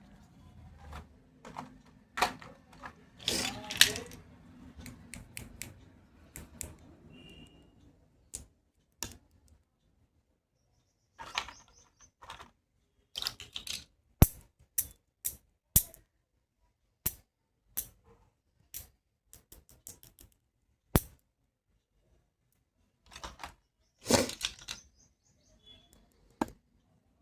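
Hard plastic toy medical tools clicking, tapping and scraping as they are handled and set down in their tray: scattered sharp clicks with short silences between, and a few brief scrapes.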